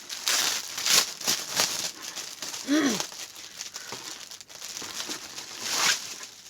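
Packaging crinkling and rustling as an item is pulled out and unwrapped from a subscription box, with a brief vocal sound about three seconds in.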